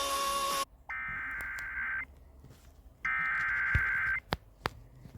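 Two bursts of Emergency Alert System SAME header data tones, each a harsh buzzing warble lasting about a second, a second apart, followed by a few sharp clicks. These are the digital header that opens a new alert, here a severe thunderstorm warning.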